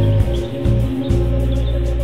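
Background music: held notes over a low bass line that changes note every half second or so.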